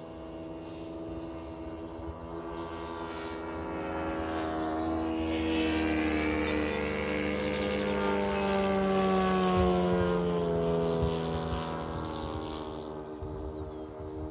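Radio-controlled model warbird's engine and propeller making a flyby pass. It builds up, is loudest about two-thirds of the way in, then drops in pitch and fades as the plane passes and moves away.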